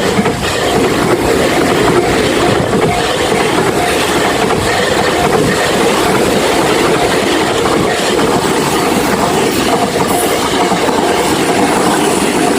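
Train running on the rails, steady wheel noise with rail-joint clatter, and a level-crossing alarm pulsing faintly in the background.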